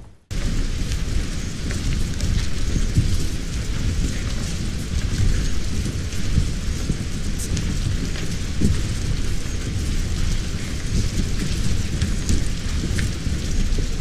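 A kinetic sound installation of many mechanical elements making a dense, steady rattling and rustling noise like heavy rain, deep in the low end, with scattered sharper clicks. It starts abruptly just after the beginning.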